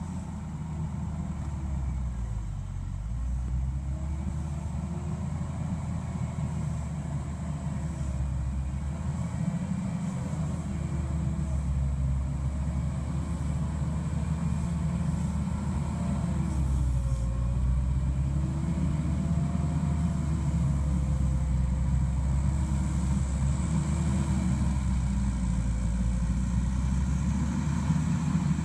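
Mustang MTL325 compact track loader's diesel engine running steadily under load as it pushes dirt. A fainter whine wavers up and down in pitch above the engine's rumble.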